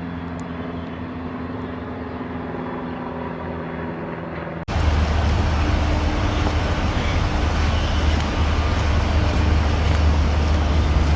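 A steady vehicle engine hum with even tones. About four and a half seconds in, it cuts abruptly to a louder, noisier low rumble of outdoor vehicle noise.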